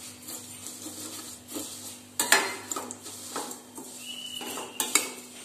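Steel spoon scraping and clinking against a stainless steel kadai while vermicelli is stirred and roasted in ghee, with a sharp clank about two seconds in and another near the end.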